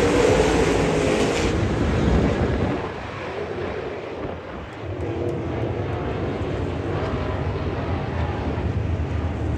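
Dirt late model race car engines running at speed, loud and bright at first, falling off about a second and a half in, dipping, then settling into a steady drone.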